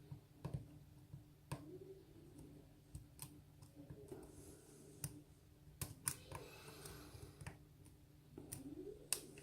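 Faint, irregular clicks of a hook pick working the pin stacks of a Kik cylinder lock, about eight sharp clicks spread unevenly through. A faint steady hum lies underneath.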